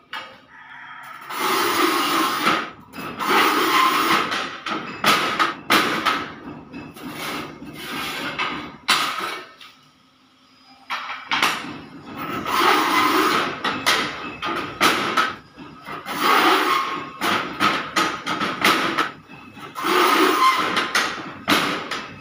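Manual rail tile cutter working 30x60 porcelain tiles: long scratchy rasping strokes of the carriage and scoring wheel, broken by sharp clacks of tile and metal. It comes in two spells, with a short pause about ten seconds in.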